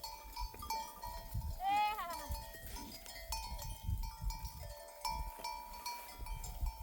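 A sheep bleats once, about two seconds in, over the steady ringing and jingling of the flock's neck bells.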